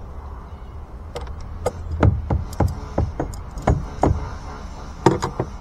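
A dozen or so irregular, sharp metal knocks and clicks as the old steering cable's end is worked back and forth and pulled out of the outboard's tilt tube, metal knocking against metal.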